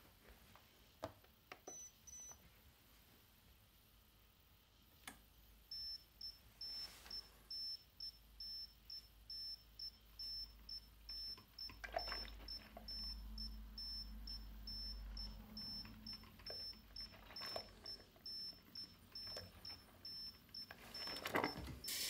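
Smarter coffee maker beeping over and over, short high beeps about two a second, as its hacked firmware sets it off. A few soft knocks and a faint low hum come in between.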